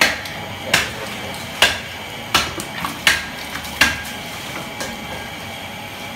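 A heavy butcher's cleaver chopping into a pig carcass: six sharp, evenly paced chops a little under a second apart, then a pause near the end with one lighter knock.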